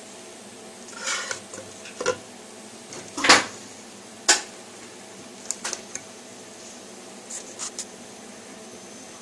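Handling knocks, clicks and rubbing as the pouring-coffee LED lamp is put together: a paper cup fitted as its shade and its small ceramic cup moved on the table. The loudest knock comes about three seconds in, with a sharp click about a second later.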